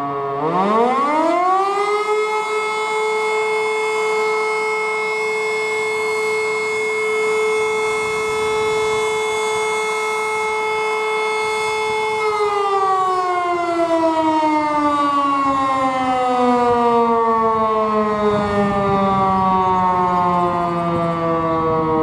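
Rooftop electromechanical siren with a mushroom-shaped hood, sounding for a siren test. It spins up to a steady tone in about two seconds and holds it for about ten seconds, then is cut and slowly winds down, its pitch falling.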